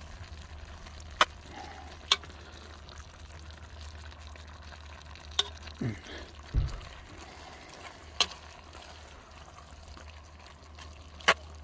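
Ground beef and vegetables sautéing in a cast-iron Dutch oven over charcoal briquettes, a steady sizzle while a metal spatula stirs them, with sharp clicks of the spatula against the iron about five times and a low knock a little past halfway.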